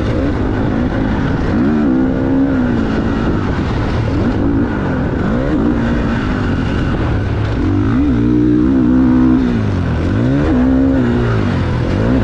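GasGas MC450 motocross bike's four-stroke single-cylinder engine revving up and rolling off again and again, its pitch rising and falling as it is ridden through a string of corners.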